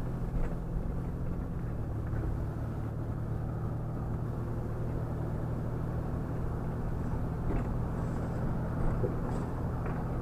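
Engine and road noise inside a moving vehicle's cabin: a steady low hum.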